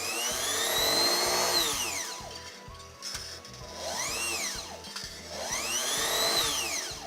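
Small sewing-machine electric motor whining as it is sped up and slowed down three times through the foot pedal speed controller, its pitch rising and falling with each press.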